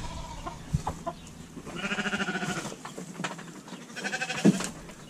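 Goat kids bleating: a long quavering bleat about two seconds in and a shorter one near the end, with a few light knocks between them.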